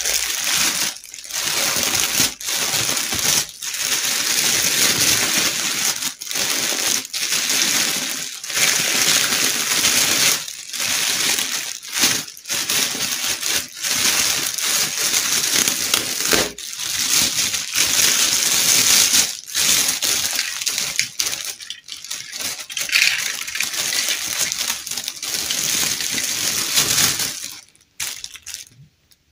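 Clear plastic bag crinkling and rustling as hands press and rub it, in long stretches with brief pauses; it dies away near the end.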